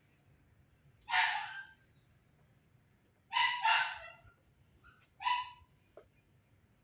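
Kitten meowing four times: one meow about a second in, two in quick succession around three and a half seconds, and a last one just after five seconds.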